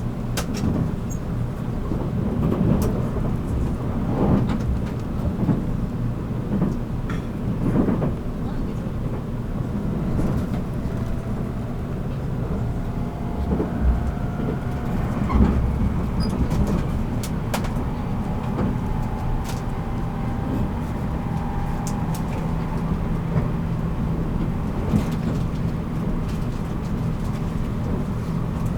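Interior running sound of a JR Kyushu 783-series electric train's motor car: a steady low rumble of wheels on rail with scattered sharp clicks and knocks. A faint whine glides up and down in pitch through the middle.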